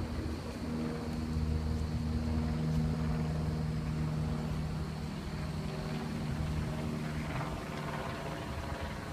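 Vehicle engine running steadily with a low hum under a rushing noise; the hum eases off a little after about seven seconds.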